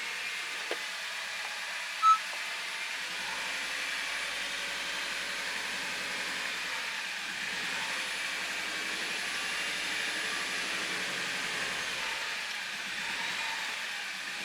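A single short electronic beep about two seconds in, over the steady running noise of a 2013 Honda Civic Hybrid on jacks. The owner judges the car free of its earlier bearing noise.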